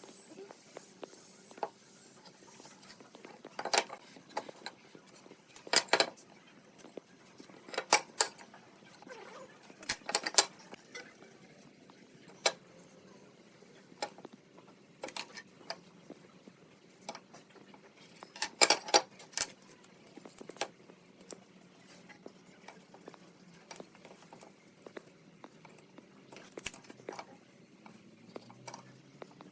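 Scattered sharp knocks and clatters of tools and wood pieces being handled in a workshop, spaced a second or two apart at first, with a quieter stretch in the middle.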